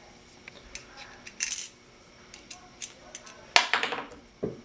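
Steel hardware clinking and rattling against perforated square steel tubing as bolts, washers and nuts are fitted by hand: scattered light clicks, a short rattle about a second and a half in and a louder clatter near the end, followed by a duller knock.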